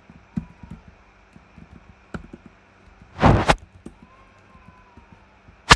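Faint computer keyboard and mouse clicks while code is edited, with one loud short whoosh of noise about three seconds in and a sharp click near the end.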